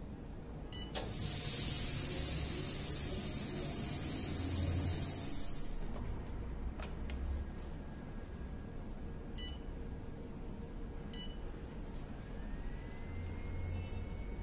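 Oxygen facial machine beeping at touchscreen presses, then a loud steady hiss of air jetting from its oxygen spray for about five seconds before it stops. More single beeps follow, and a faint rising whine starts near the end.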